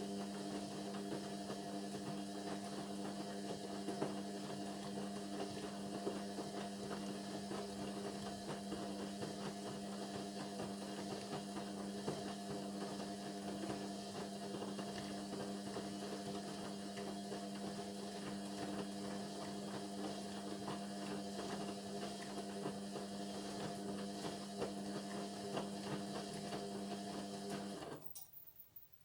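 Indesit washing machine running mid-cycle with a steady motor hum, which cuts off suddenly near the end.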